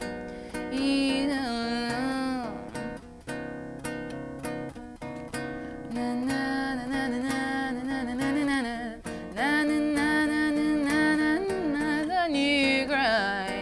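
Female singer holding long, wordless vibrato notes over acoustic guitar accompaniment in a slow jazz ballad.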